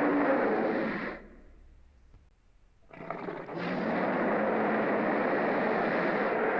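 Vintage Megalosaurus roar sound effect: a rough, rumbling roar that fades out about a second in. After a near-silent gap, a second roar starts about three seconds in, swells a moment later and holds.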